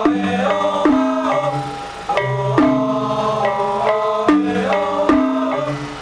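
Instrumental music: struck pitched percussion and drums playing a repeating melodic phrase.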